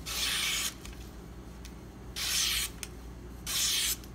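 Kitchen knife slicing through a sheet of flyer paper, three cuts each lasting about half a second, a rasping hiss: a paper cut test of a freshly sharpened and stropped edge.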